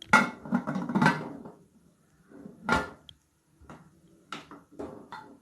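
Metal pressure cooker lid being set on and closed: a clatter of metal knocks at first, one sharp clank just under three seconds in, then several lighter taps.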